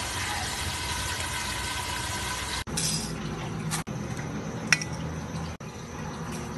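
Cooking sounds: a steady hiss from a pot of spinach on the stove as it is stirred, then, after a cut, a lower hum and one sharp metallic clink about two-thirds of the way through.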